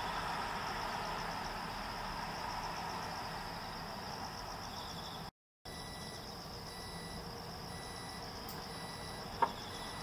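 Insects chirring steadily at a high pitch over a low, steady hum of distant traffic. The sound drops out briefly about five seconds in, and there is one sharp click near the end.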